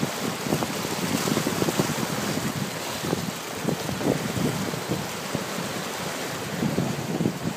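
Wind buffeting the microphone aboard a sailing yacht under way, over a steady rush of water along the hull.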